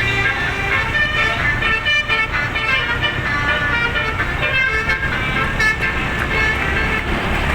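A bus's telolet basuri musical air horn plays a quick run of short notes, a horn-blown melody, over a low engine rumble.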